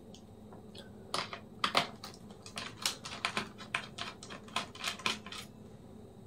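Irregular small clicks and taps of a screwdriver and tiny screws as the screws holding a laptop's stainless-steel cooling parts are undone, starting about a second in and stopping shortly before the end.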